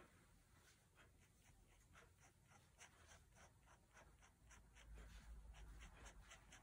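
Faint scratching of a fine-tip Staedtler Pigment Liner 0.1 pen drawing short, quick hatching strokes on paper, about three or four strokes a second. A low rumble joins about two-thirds of the way through.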